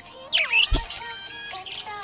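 Budgie chirping in quick, sweeping notes over background music with held steady tones; a single low thump comes about three-quarters of a second in.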